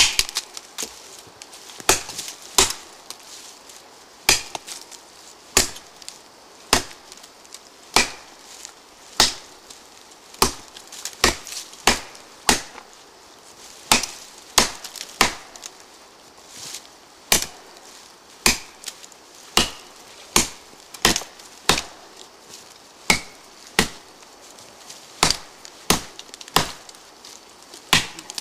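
ParangXL parang (heavy machete) chopping into a standing tree trunk about 12 cm across: a long series of sharp woody strikes, about one a second at uneven intervals, the blade biting into the wood and splitting off chips.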